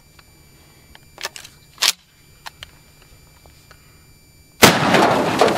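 A few small clicks, then about four and a half seconds in, a single blast from a 12-gauge Mossberg 590 pump shotgun firing a 3-inch buckshot shell, followed at once by a long loud wash of noise.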